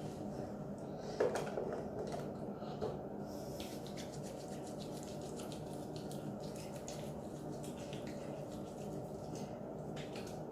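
A steady low hum with a few light clicks and taps of small objects being handled; the sharpest click comes about a second in.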